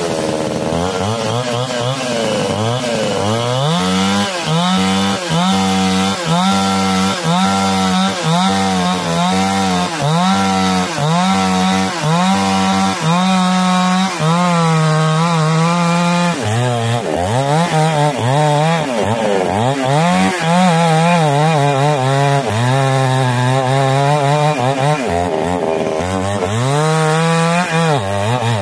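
Two-stroke Ogawa chainsaw with a 22-inch bar sawing into a standing white seraya trunk, the engine running at high speed under load. Its pitch dips and recovers about once a second as the chain bites into the wood, then holds steadier for longer stretches later on.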